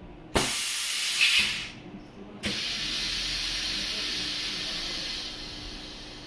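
Boot vamp crimping machine hissing twice. A sharp hiss starts suddenly about a third of a second in and stops after about a second and a half. A second hiss starts suddenly a little before the middle and slowly tails off.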